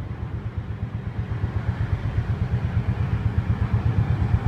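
Low, uneven rumble of motor vehicles in street traffic.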